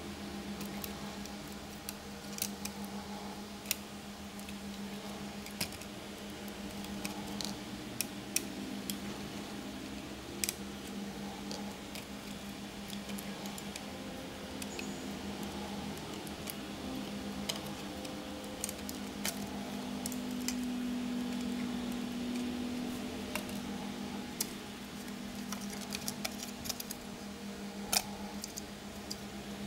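Scattered light clicks and taps of plastic and circuit-board parts being handled as a laptop motherboard is unclipped and lifted out of its base, with one sharper click near the end, over a steady low hum.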